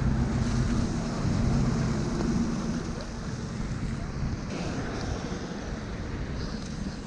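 Rainy city street ambience: a steady wash of rain and wind noise. A vehicle's low engine rumble is strongest at first and fades about three seconds in.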